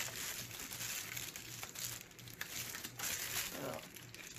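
Plastic poly mailer bag crinkling and rustling in the hands as it is handled, in irregular crackles.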